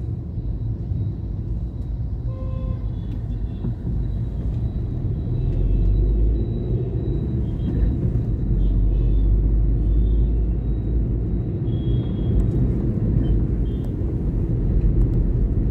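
A vehicle driving in road traffic: a steady low rumble of engine and road noise that grows a little louder about six seconds in.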